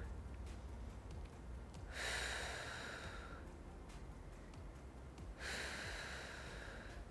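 A woman breathing out hard twice, each breath lasting about a second and a half, about two seconds in and again near the end, with the effort of lifting a dumbbell in front raises. A faint low hum lies underneath.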